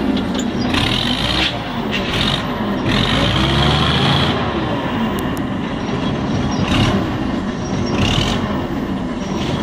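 Allis-Chalmers TL20 wheel loader's engine running loudly, its pitch rising and falling several times.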